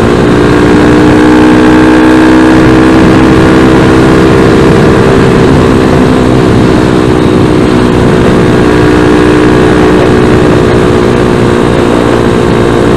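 Zongshen ZS190 carbureted single-cylinder four-stroke motorcycle engine running at a steady cruising speed, its pitch holding nearly level, with wind noise rushing over the microphone.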